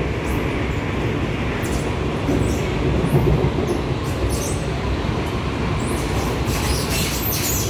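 Inside a moving R151 metro train car: steady running rumble with short, intermittent high-pitched screeching.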